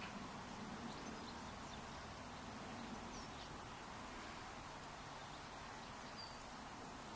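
Faint, steady outdoor background hiss, with a couple of brief, faint high chirps about three and six seconds in.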